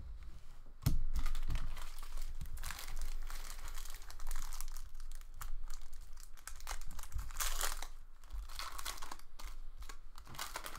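Foil trading-card pack wrapper crinkling and being torn open by hand, starting loudly about a second in and going on in uneven bursts.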